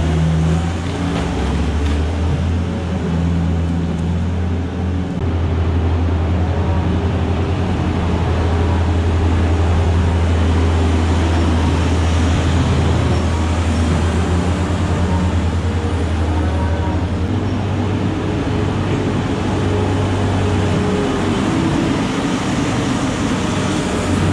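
A vehicle engine running steadily with a low drone, its pitch shifting slightly a few times.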